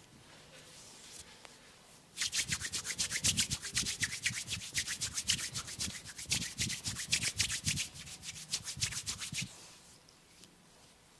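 Rapid, rhythmic scratching strokes on hair and scalp during a head massage, several strokes a second, starting about two seconds in and stopping with a few seconds left, after faint rubbing.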